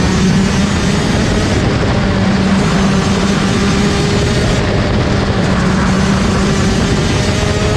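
Rotax Max DD2 kart's 125cc two-stroke engine running at high revs, heard onboard. Its pitch holds fairly steady, then rises slowly over the last few seconds as the kart accelerates.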